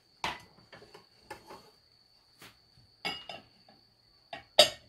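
Dishes clinking and knocking as plates are handled and set down: a string of separate sharp knocks, the loudest near the end. A faint steady high-pitched tone runs underneath.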